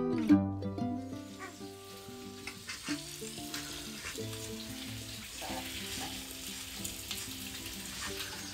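Soft background music with a steady crackling hiss under it, like sizzling or record crackle.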